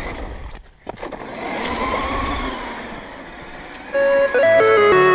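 Tamiya Boomerang RC buggy's electric motor whining as it speeds up and slows down, over a rushing noise from the water and wind. Electronic music comes in near the end.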